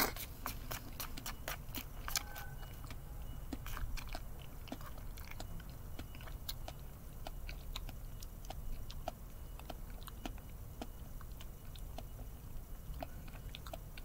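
Close-up eating sounds: a person chewing a mouthful of natto mixed with herb leaves, with many small, irregular clicks and smacks.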